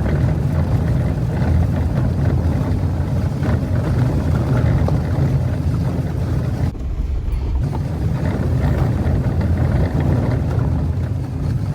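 Jeep Wrangler driving on a rough dirt trail: steady engine and tyre rumble with small knocks and rattles from the road. The higher sounds briefly drop out about seven seconds in.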